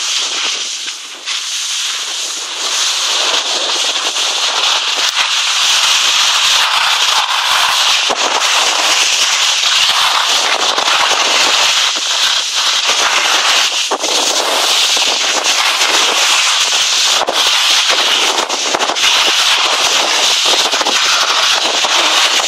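Skis scraping and chattering over hard-packed snow, heard as a loud, crackling hiss full of small clicks. It grows louder after about three seconds and then holds steady.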